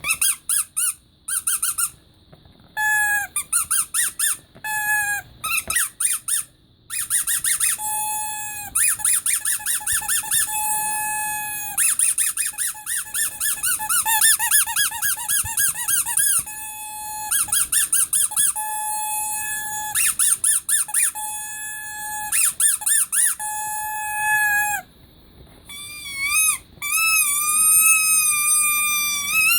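Rubber squeaky toy being squeezed over and over, giving short high squeaks in quick runs with brief pauses between them. Near the end come longer, wavering squeaks.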